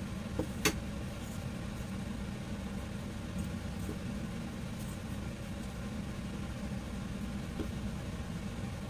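Steady low background hum, with a couple of faint light taps in the first second as hands press a pork chop into cornstarch in a stainless steel bowl.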